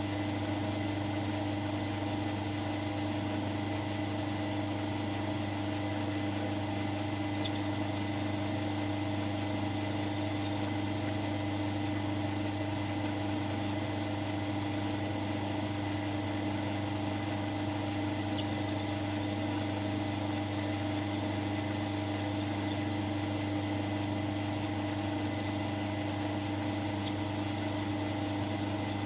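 South Bend lathe running steadily: a constant motor and drive hum with a few faint ticks.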